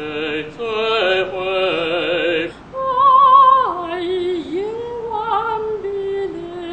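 Operatic singing with wide vibrato. A phrase ends about two and a half seconds in, then a soprano sings long held notes, her line stepping down in pitch a little after three and a half seconds.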